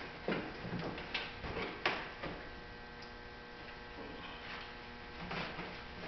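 Scattered clicks and light knocks of hand work on the car's plastic mud flap and wheel-well trim, several in the first two seconds and fainter ones later, over a steady electrical hum.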